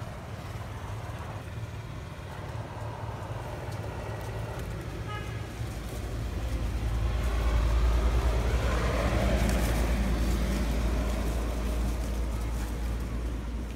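Low rumble of a motor vehicle engine, building about halfway through, loudest soon after, then slowly fading.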